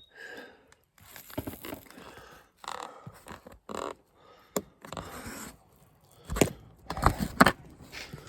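Rustling and scraping of hands working the loose fabric headliner and its wiring, in uneven bursts, with a sharp click about halfway through and a few dull knocks near the end.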